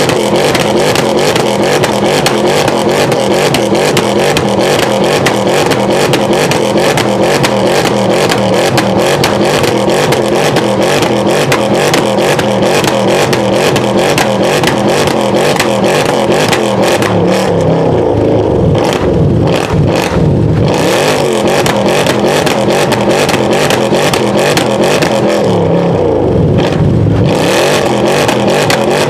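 Mercedes-Benz C63 AMG's 6.2-litre V8 exhaust, loud, with a rapid, continuous crackle and popping over the running engine. Twice in the latter part the engine is revved up and lets off, once about two-thirds of the way in and once near the end.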